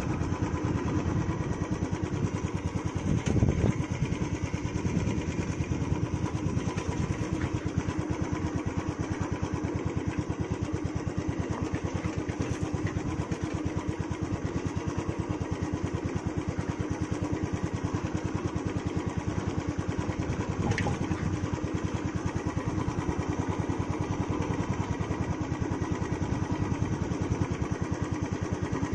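Royal Enfield Classic 350's single-cylinder engine through its stock exhaust, thumping steadily at low revs while the bike is ridden slowly, with a brief louder swell about three seconds in.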